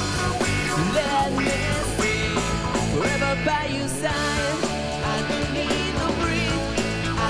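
Rock band playing live: a male lead singer sings over a full band with a drum kit and cymbal strokes, at a steady level throughout.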